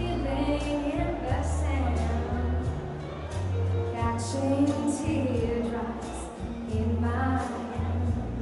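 A young woman singing solo into a handheld microphone over accompaniment with a steady bass line and light percussion.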